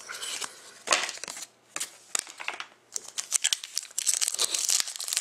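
Trading cards and plastic sleeves being shuffled, then a foil trading-card pack being crinkled and torn open. The crinkling thickens and runs on from about three seconds in.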